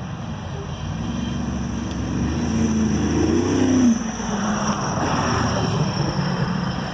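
Long freight train going by: a steady low rumble with a diesel engine drone that rises and falls in pitch about three seconds in.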